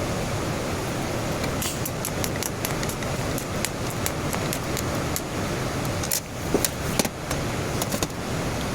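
TIG welding arc on stainless steel: a steady hiss with frequent sharp crackles, faltering briefly twice about six and seven seconds in.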